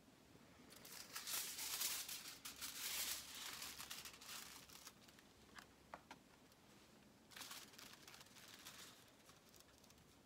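Aluminium highlighting foil rustling and crinkling as it is handled against the hair, in two spells with a couple of light clicks between.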